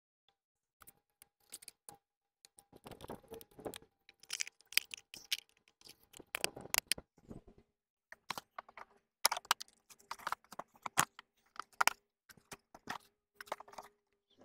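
Plastic parts of a Parkside cordless lawn mower being handled and fitted together during assembly: irregular clicks, knocks and rustling scrapes, coming in clusters with short pauses between.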